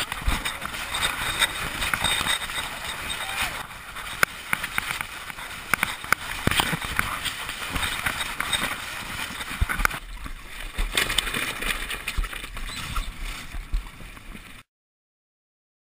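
Noise aboard a Melges 24 sailboat under way: wind and water rushing along the hull, with the rustle and knocks of sailcloth and lines being handled close by. It cuts off abruptly to silence near the end.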